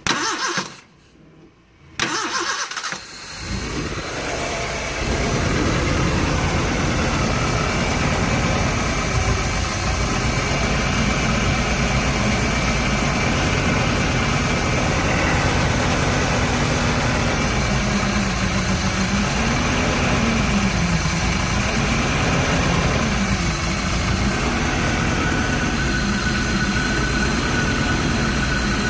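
Hindustan Contessa's Isuzu four-cylinder MPFI petrol engine being started: a brief burst, a second of near quiet, then it fires about two seconds in and settles within a few seconds into a steady idle.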